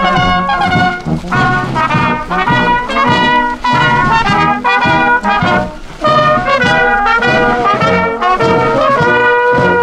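Marching brass band playing a march on cornets, tubas and other horns, with a drum beating time.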